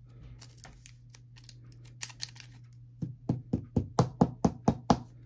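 A sleeved trading card being worked into a rigid plastic top loader, with faint plastic scrapes and clicks, then about nine quick, sharp taps over two seconds starting about three seconds in, as the top loader is knocked against the table to seat the card.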